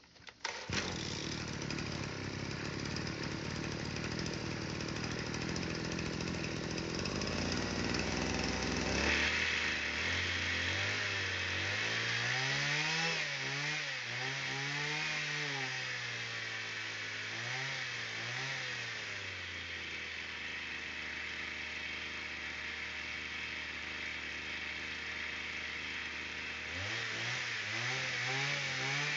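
Kyoritsu SRE235 brush cutter's small two-stroke engine catching about half a second in and running at low speed. From about ten seconds in it is revved up and down several times on the throttle. It settles to a steady lower speed for a while and is revved up again near the end.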